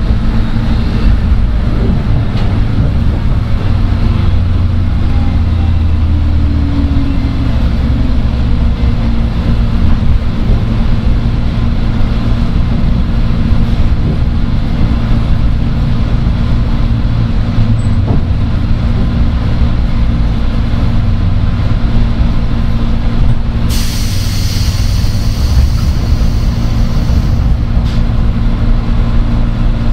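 Running sound inside the motor car of a JR West 103 series electric train: a steady traction-motor hum with the rumble of wheels on rail. Near the end a loud hiss lasts about four seconds.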